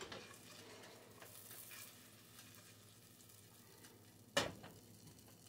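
Butter melting in a saucepan over medium heat, sizzling faintly. A single sharp knock about four and a half seconds in.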